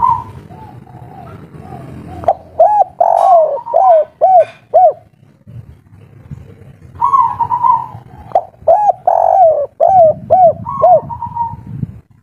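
Spotted dove cooing: two song phrases a few seconds apart, each a quick run of rounded, throaty coos, some led or closed by a longer held note. It is the song type dove keepers call 'kuk 3'.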